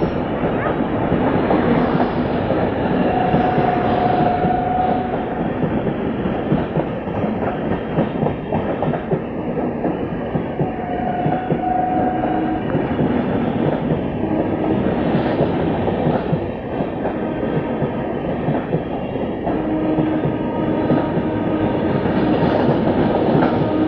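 Indian Railways train passing close by, its wheels clattering over the rail joints in a steady run of clicks, with a few brief steady tones coming and going.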